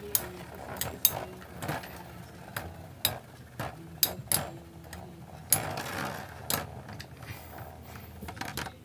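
Metal Beyblade spinning tops clashing in a plastic stadium: sharp metallic clicks and clacks at irregular intervals, about one or two a second.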